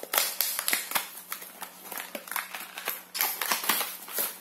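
Small cardboard box being opened and a clear plastic blister tray slid out of it by hand: a quick, irregular run of crisp clicks and rustles of cardboard and plastic.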